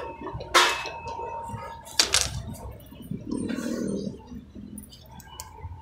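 Handling noise as a canvas work jacket and the phone are moved about: low rustling and bumping, with two sharp knocks about half a second and two seconds in.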